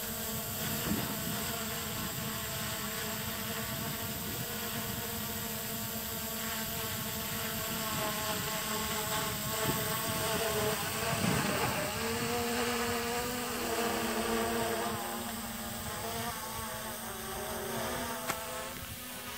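Hubsan H501SS quadcopter flying: the steady buzzing whine of its four brushless motors and propellers, the pitch shifting up and down as it manoeuvres, most noticeably in the second half.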